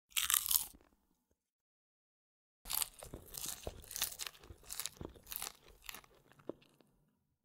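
Crunching of a crispy breadcrumb-coated fried potato wedge: one short crunch, then after a pause about four seconds of repeated crunches.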